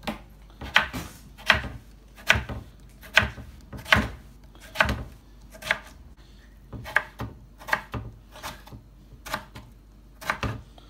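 Kitchen knife slicing tomatoes on a wooden chopping board: a sharp knock of the blade on the board with each cut, roughly one cut a second. The cuts are strongest in the first half and lighter after.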